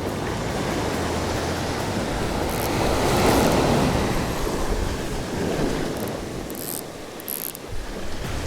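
Surf breaking on a sandy shore: a wave builds to its loudest about three seconds in and then washes out and fades, with wind buffeting the microphone.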